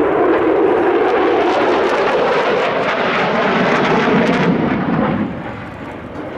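Loud jet roar of a Mitsubishi F-2 fighter's single F110 turbofan during a banking display pass. The roar drops off about five seconds in as the jet turns away.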